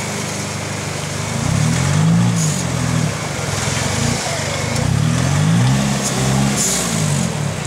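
4x4 pickup truck's engine revving up and down in repeated swells as it works against a rock in a shallow river.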